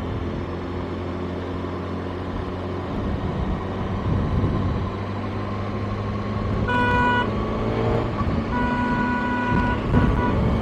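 Kawasaki ZX-6R's inline-four engine running on the move in traffic. A vehicle horn sounds twice past the middle: a short beep, then a longer one.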